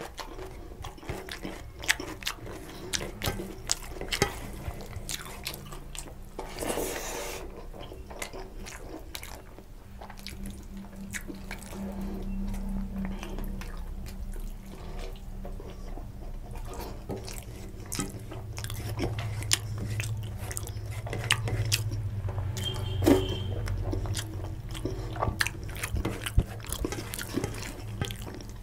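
Close-miked eating by hand: fingers scraping rice and curry up off a steel plate, and wet chewing and mouth sounds, with many small clicks and smacks. A low hum runs through the middle and second half.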